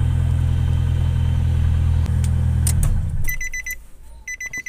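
Nissan Serena C24's engine running at idle, then dying out about three seconds in: the sudden stall that comes with a leaking brake booster vacuum. Right after, the car's warning chime beeps in short rapid runs, about once a second.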